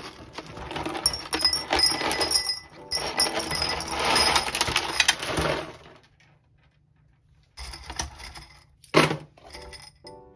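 Dry whole-wheat fusilli pouring from a cardboard box into a ceramic ramekin, a dense rattling clatter for about five seconds. After a pause, a few pieces are handled and dropped, with one sharp clack about nine seconds in.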